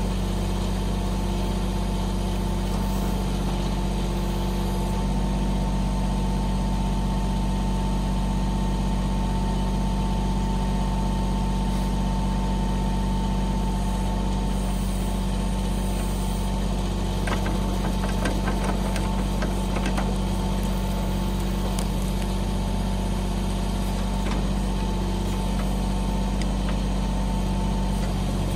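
Mahindra 1626 compact tractor's diesel engine running steadily, with a thin steady whine over the engine note. A short run of clicks and knocks comes about two-thirds of the way through.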